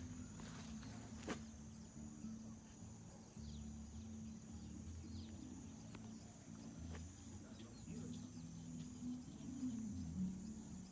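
Faint outdoor ambience: a steady high-pitched insect drone, with a few short falling bird chirps and a low rumble of rustling and handling noise. A couple of sharp clicks about a second in.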